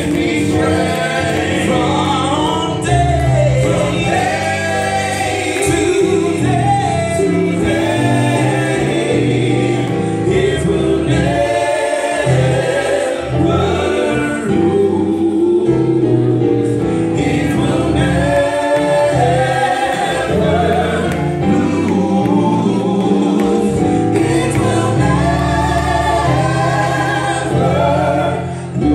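Male gospel vocal quartet singing together into handheld microphones, amplified.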